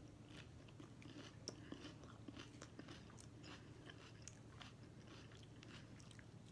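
Faint chewing of crunchy raw salad (lettuce and shredded carrot): scattered soft crunches and mouth clicks at an irregular pace, over a low steady hum.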